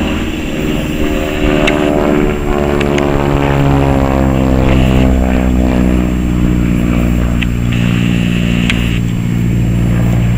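Single-engine propeller aerobatic plane flying a display overhead, its engine and propeller droning loudly; the pitch slides down a few seconds in, then holds steady.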